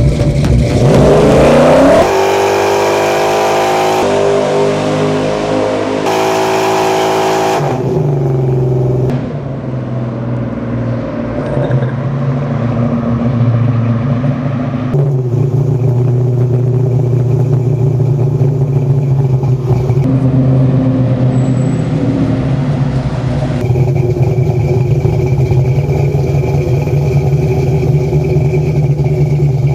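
Chevrolet 502 big-block V8 with a cam and Nelson alien intake revving up hard, then running at a steadier speed, in several cut-together clips.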